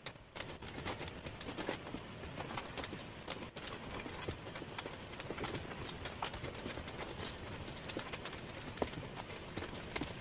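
Thin wooden jigsaw puzzle pieces clicking and clattering on a tabletop as hands spread and sort through them: a dense, continuous run of small taps.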